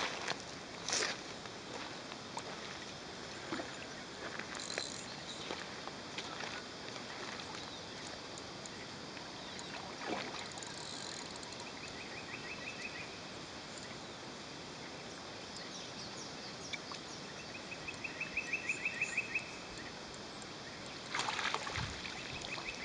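Outdoor background: a steady hiss with scattered faint clicks, and twice a short run of rapid, evenly spaced high ticks, first about halfway through and again a few seconds later.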